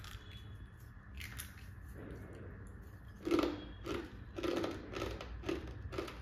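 Someone chewing crunchy janthikalu, fried rice-flour spirals, with mouth noise close to the microphone. There is one crisp snap about a second in, then a steady run of crunches, about two a second, from about three seconds in.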